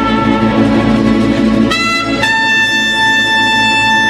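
Mariachi band of violins, trumpets, guitarrón, vihuela and guitar playing live. About two seconds in, the trumpets come in on a long held note over the strings.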